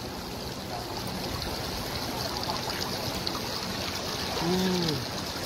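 Shallow river water running and trickling steadily around a sandbank. Near the end a man gives one short exclamation.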